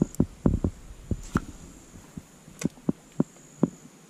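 Dull knocks and thumps on a fishing kayak's plastic hull, about a dozen, irregularly spaced.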